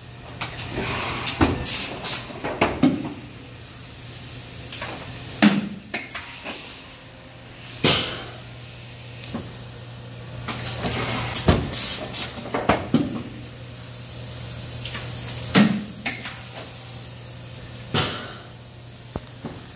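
Thermoforming machine under power: a steady low hum with irregular metallic clanks and knocks every second or few, some trailing off in a short hiss.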